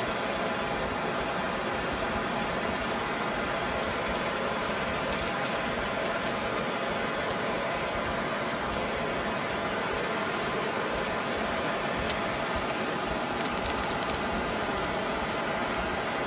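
Handheld gas torch burning steadily with an even hiss of its open blue flame.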